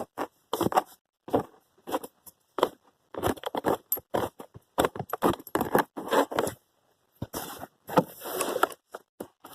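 Irregular short scrapes and clicks of a hand tool and metal parts as a blower motor mounting bolt is worked loose and backed out.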